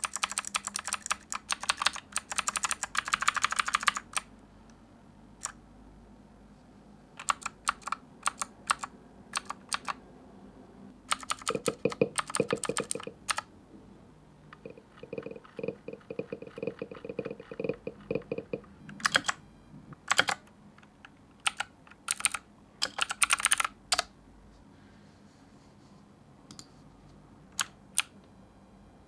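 Typing on an AJAZZ K870T mechanical keyboard with blue clicky switches: fast runs of keystrokes separated by pauses, with a few single key presses.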